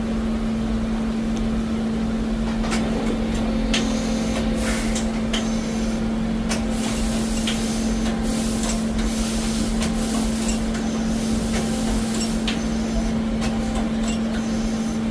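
Doosan Puma 400C CNC lathe running with a steady, even hum. From about three seconds in, irregular sharp clicks and scraping noises sound over it.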